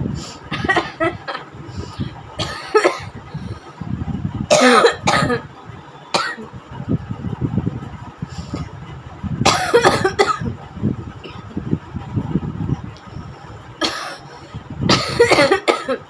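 A woman coughing deliberately in about half a dozen separate bouts of harsh coughs, with short pauses between them: forced coughs put on for a challenge rather than a real cough.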